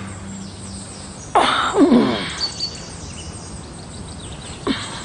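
Forest ambience with faint bird chirps. About a second and a half in, a man lets out one loud wordless vocal sound whose pitch falls away, and a shorter one follows near the end.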